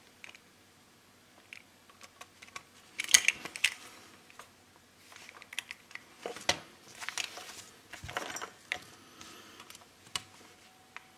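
Irregular clicks, taps and rattles of hands handling a bare circuit board and plugging a cable adapter onto it, with the loudest cluster about three seconds in.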